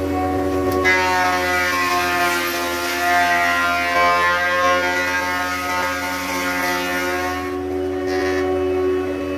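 Thickness planer running, with a steady hum, as its cutterhead planes a long, thick solid-wood plank. The cut starts about a second in as a dense whining drone with hiss, then drops back to the idle hum near the end after a short last burst.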